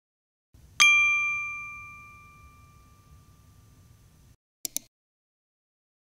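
A single bright metallic ding about a second in, ringing out in several clear tones that fade over about three seconds, followed by two quick clicks near the end.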